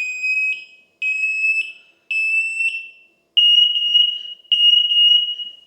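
Arctic Hayes wireless interlinked smoke alarms sounding on test: a shrill, piercing tone in pulses about a second long. About three seconds in, the tone steps slightly higher and the pulses thicken as the linked alarms sound together.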